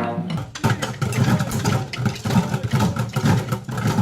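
Samba percussion from a children's group playing homemade instruments: a dense, uneven run of drum and percussion hits over low thumping beats.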